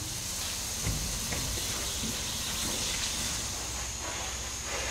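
Steady hissing background noise with a thin, high steady whine, and a few faint knocks about a second in.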